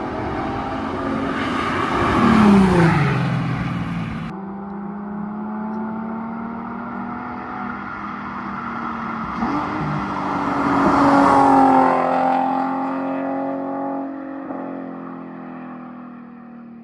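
Car engines running and revving across two edited clips that change abruptly about four seconds in, with the engine pitch rising and falling in places.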